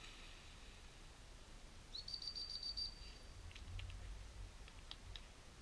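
A single high whistled note about two seconds in: it rises quickly, then holds with a fast trill for just under a second. A few faint short chirps follow over a low rumble.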